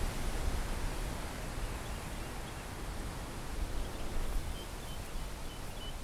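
Outdoor ambience: a steady noisy hiss with a low rumble, with a few faint short high chirps in the second half.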